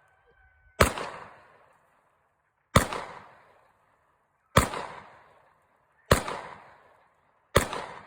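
9mm semi-automatic pistol fired five times in slow succession, a shot every one and a half to two seconds, each loud report trailing off in an echo about a second long.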